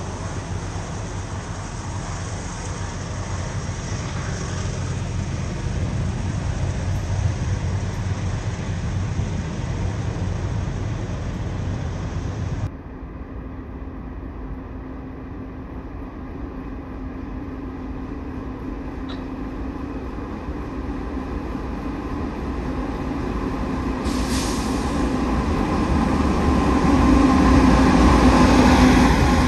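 Providence & Worcester freight train's diesel locomotives approaching and passing, the engine drone growing steadily louder toward the end. Before that, a low rumble cuts off abruptly about halfway through.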